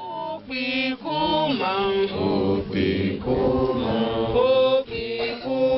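A group of voices singing a chant-like prayer song.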